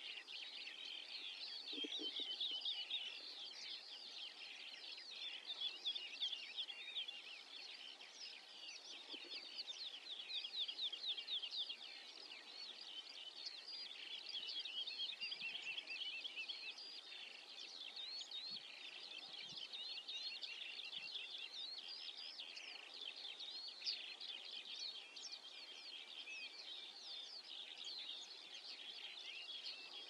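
A continuous chorus of small songbirds: many quick, high chirps and trills overlapping without a break.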